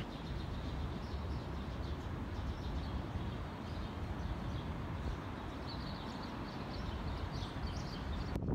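Steady low rumble of distant city traffic, with small birds chirping now and then, more often in the second half.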